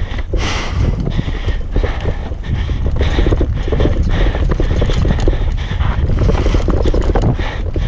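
Mountain bike, a Norco Range full-suspension enduro bike, ridden fast down a dirt singletrack: knobby tyres on loose dirt and roots, with constant irregular rattling and clattering from chain and frame over the bumps, under a steady low rumble.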